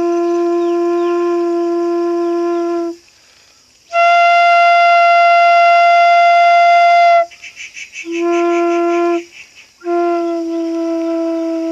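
Bamboo flute (bansuri) playing long held notes. It starts on a low note, moves to a louder note an octave higher, then returns to the low note twice.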